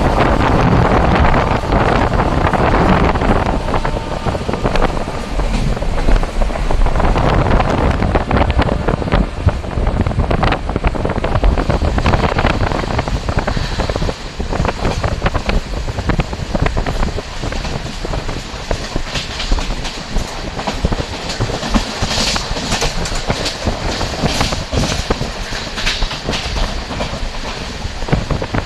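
Moving passenger train: a steady rumble of wheels on the rails, with a rapid clickety-clack of clicks and knocks from the track. In the second half, hissing, rasping bursts come in over it.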